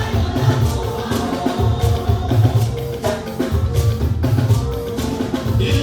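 Band music with a drum kit, other percussion and a heavy, driving bass line, played at a steady beat.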